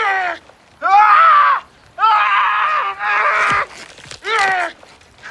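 A man screaming in pain with a knife driven through his hand: a string of short, loud cries, each under a second long, several dropping in pitch as they end.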